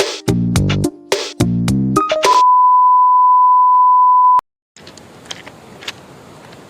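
Background music with short, stacked notes for about two seconds, then a single steady high-pitched beep held for about two seconds that cuts off abruptly. After a brief silence comes a faint, even hiss with a few light clicks.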